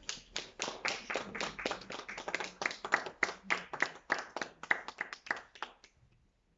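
A small audience clapping for about six seconds after a poem reading; the claps are distinct and irregular, then stop abruptly.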